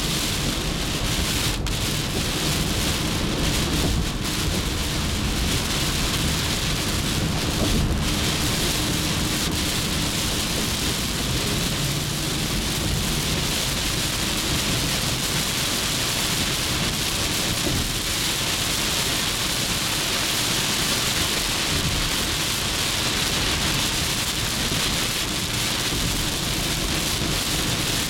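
Heavy rain beating steadily on a car's windshield and roof, heard from inside the cabin, mixed with the hiss of tyres on the wet expressway.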